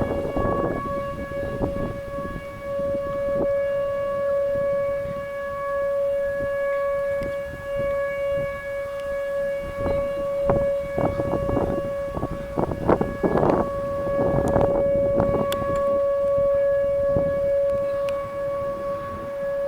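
Outdoor civil-defense warning sirens sounding for a tornado warning, holding one steady pitch. Irregular bursts of rough noise break in around the middle.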